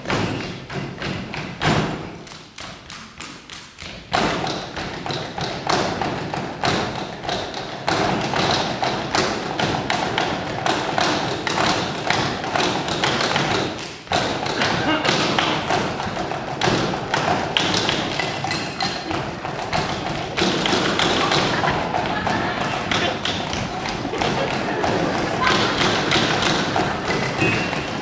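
An ensemble of pens and markers drumming and tapping on a folding table in a fast percussion rhythm, with heavier thumps on the tabletop. The playing thins out and drops in level about two seconds in, then comes back dense and loud from about four seconds in.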